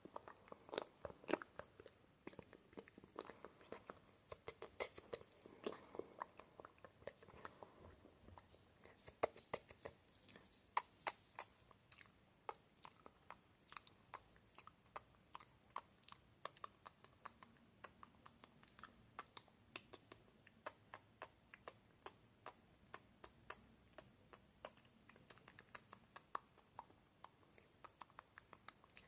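Close-miked ASMR mouth sounds: a quick, uneven run of sharp tongue and lip clicks and smacks, several a second, meant to sound wet.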